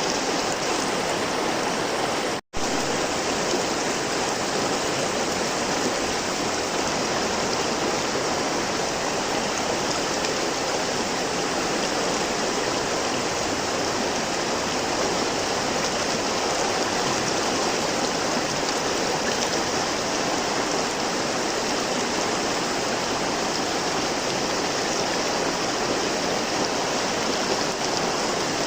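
River water flowing steadily, a dense even rush of water. It drops out to near silence for an instant about two and a half seconds in, then resumes unchanged.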